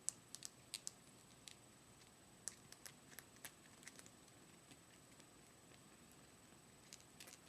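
Faint, irregular wet clicks and smacks of a kitten suckling at a bottle nipple, busiest in the first few seconds and again briefly near the end.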